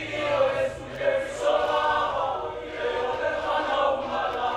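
Samoan group song: many young male voices singing together in long, held phrases.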